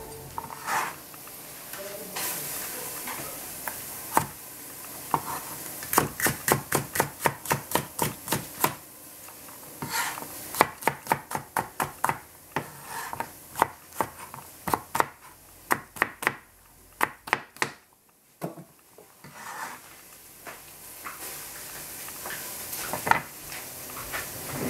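Chinese cleaver chopping red capsicum into strips on a plastic cutting board: runs of quick knocks on the board, about three a second, with short pauses between the runs.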